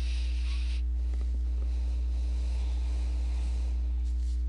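Steady low electrical hum from the recording chain, with a soft hiss that stops under a second in; no distinct events.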